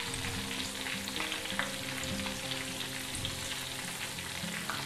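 Whole red snapper deep-frying in hot oil: a steady sizzle with many small crackles and pops. The fish is cooked through after five to six minutes in the oil.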